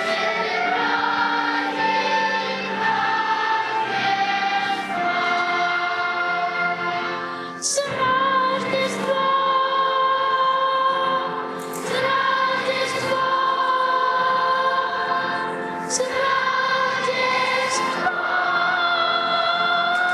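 A choir singing a song in long, held notes, with short breaks between phrases.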